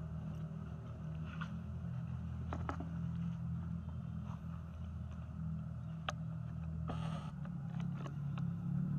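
A steady low hum, with a few faint clicks and a short hiss about seven seconds in.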